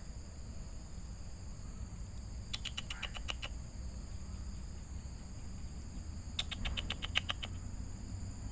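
Outdoor insect chorus: a steady high buzz, with twice a rapid chirping trill lasting about a second, once about two and a half seconds in and again near six and a half seconds.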